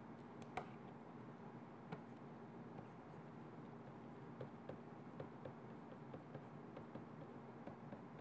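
Faint light tapping and ticking of a stylus writing on a tablet screen, over a low steady hum.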